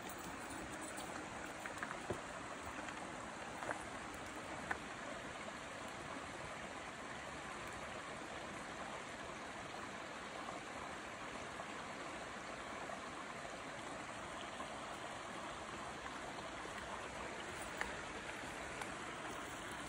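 Steady rushing of a small creek, with a few light clicks about two, four and five seconds in and again near the end.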